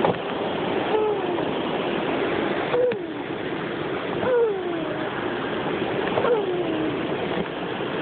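A small boy's voice making a short falling-pitch sound effect four times, about every one and a half to two seconds, as he steps down wooden stairs in sandals, with a couple of faint footfall knocks. A steady rushing noise runs underneath.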